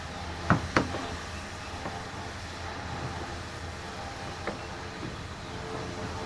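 A few sharp clicks and knocks from small parts being handled and fitted, two close together about half a second in and a fainter one later, over a steady low hum.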